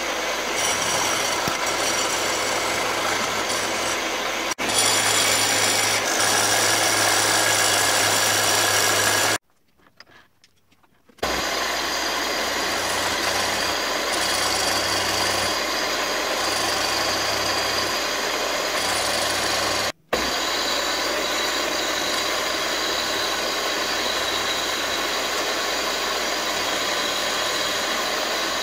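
Milling machine running with an end mill cutting into an aluminium block: a steady motor hum under continuous cutting noise. The sound breaks off for about two seconds a third of the way in, and again for a moment about two-thirds in.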